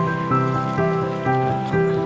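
Background music: a calm melody of held notes changing every half second or so.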